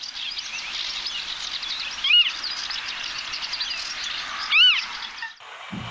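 Wild birds chirping and twittering in a busy chorus. Over it one bird gives a loud, clear call three times, about every two and a half seconds, each a single note that rises and falls. Near the end the background changes abruptly to a quieter, different birdsong ambience.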